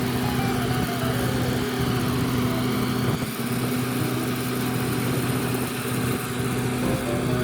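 An engine running steadily at constant speed, with music playing over it.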